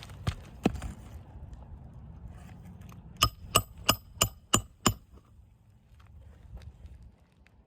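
Six quick metal-on-metal hammer strikes, each with a short ringing tone, about three a second, after two lighter knocks; low wind rumble on the microphone underneath.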